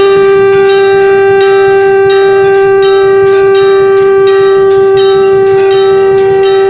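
Shankh (conch shell) blown in one long, steady note, with temple bells struck repeatedly behind it.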